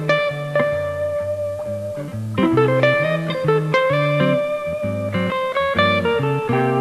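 Background guitar music: plucked notes and chords over a sustained bass line.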